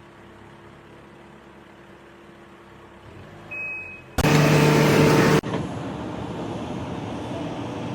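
Vehicle or machinery noise: a low hum for about four seconds, then a sudden loud blast with a steady pitch lasting about a second, followed by steady engine-like running.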